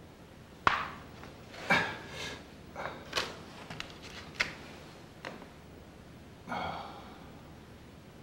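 Irregular knocks and clatters of hard objects being handled, about eight of them spread over six seconds; the loudest is a sharp knock a little under a second in.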